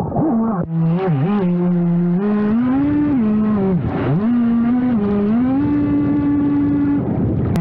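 An RC jet boat's motor and jet pump whining at speed, over the rush of water spray. The pitch drops sharply and climbs back about a second in and again about four seconds in, as the throttle is eased off and opened up again.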